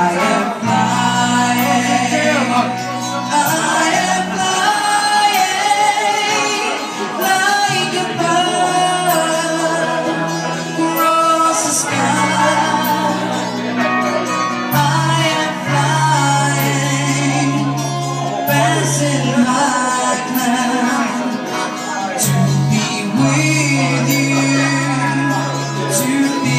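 Live music: a man singing a slow ballad into a microphone over accompaniment with sustained bass notes and a steady beat.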